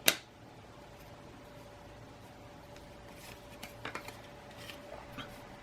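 Trading cards being handled and flipped through by hand: a sharp tap right at the start, then quiet, with a few soft card slides and light ticks about three to five seconds in.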